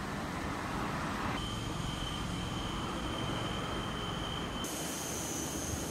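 Steady outdoor night background of road traffic noise. A thin, steady high tone joins it about a second and a half in, and the background changes abruptly twice.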